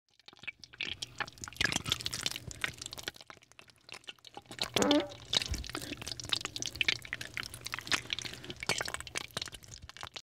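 Ramen broth bubbling and crackling with irregular pops, over a low steady hum, as a laser beam heats the bowl: a cartoon-style sound effect.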